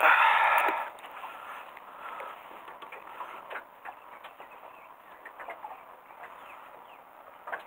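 A short splash of water as a hand dips into the river's surface, then faint water lapping with scattered small ticks and clicks.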